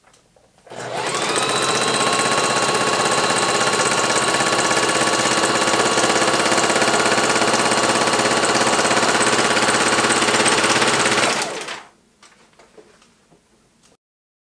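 Singer Heavy Duty electric sewing machine running flat out, stitching through a sheet of paper at about 1,000 stitches a minute. Its whine rises as it spins up, about a second in, holds steady for some ten seconds, then stops.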